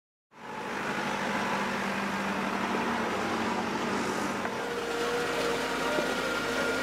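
Diesel engine of a heavy earthmoving machine running steadily, starting about a third of a second in.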